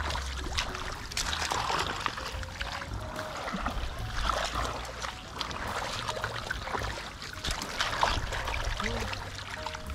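Hands sloshing and splashing through shallow, muddy water among rice stubble, in many quick, irregular splashes, over a low steady rumble.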